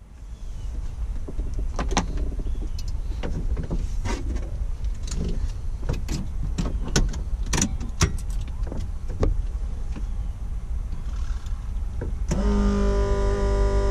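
Clicks and knocks of switches and controls being worked in a Robinson R44 helicopter cockpit over a low rumble. About twelve seconds in, a steady electric whine starts and holds.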